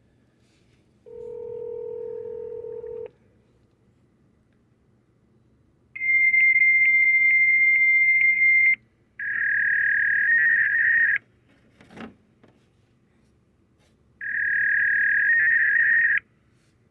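A series of electronic tones over a telephone line: a low steady tone for about two seconds, then a high tone with a fast ticking through it for about three seconds, then two wavering tones of about two seconds each with a sharp click between them.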